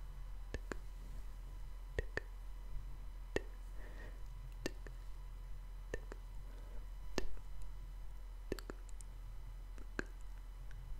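Close-miked wet mouth sounds: scattered tongue and lip clicks, one or two at a time with short pauses between them, over a faint low hum.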